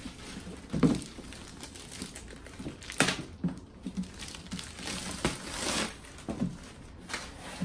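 Clear plastic wrapping crinkling and crackling as it is pulled off a boxed vinyl figure. A few sharper cracks stand out, the loudest about three seconds in.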